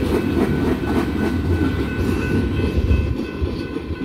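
Freight train tank cars rolling past: a steady rumble of steel wheels on rail with fading clicks over rail joints. Faint steady high tones come in about a second in, and the rumble eases slightly near the end as the last cars pass.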